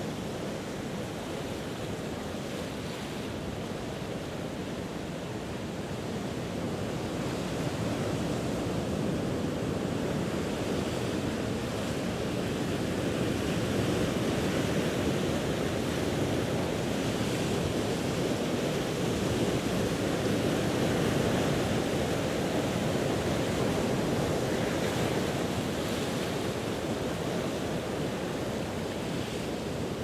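Ocean surf washing in a steady rush, swelling slowly louder through the middle and easing a little near the end.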